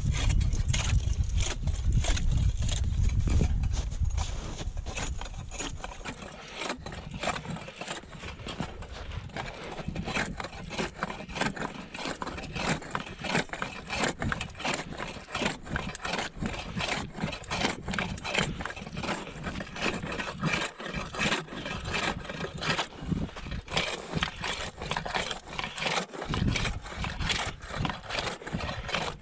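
Hand ice saw worked up and down in a drilled ice-fishing hole, its teeth rasping and chopping at the ice in rapid, repeated strokes. A low rumble fills the first few seconds.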